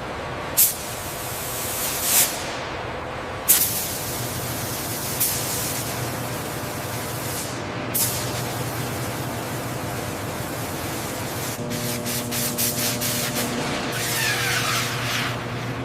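Several short bursts of spraying hiss over a steady mechanical hum, typical of a high-pressure washer or air jet cleaning a part. A quick run of clicks comes near the end, followed by more hissing.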